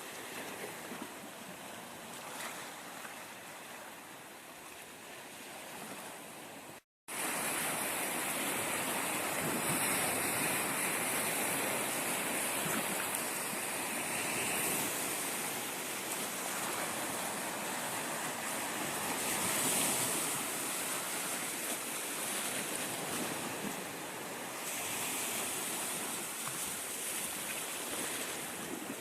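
Black Sea surf washing onto the shore with some wind, a steady rush of noise. About seven seconds in it cuts out for a moment and comes back slightly louder.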